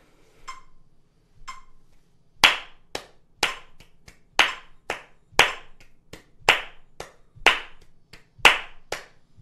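Hand clapping in time with a metronome ticking at about one beat a second (60 BPM), switching between two and three claps per beat with every beep. Two short metronome beeps sound alone first. The claps start about two and a half seconds in, with a loud clap on each beat and quieter claps between.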